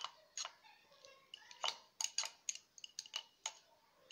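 Faint, irregular light clicks and clinks, about ten in four seconds, of a hand-held kitchen utensil knocking against a glazed ceramic serving plate heaped with flour.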